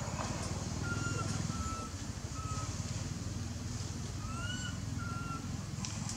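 A steady low rumble with a handful of short, thin high-pitched calls over it, one rising about four and a half seconds in.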